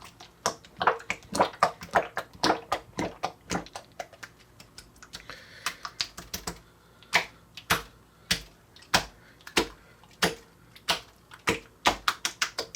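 Coca-Cola slime squeezed and worked by hand, giving a run of irregular wet clicks and pops, several a second, as air pockets burst in it.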